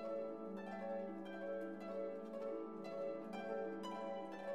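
Background music: a melody of plucked string notes over a held low tone.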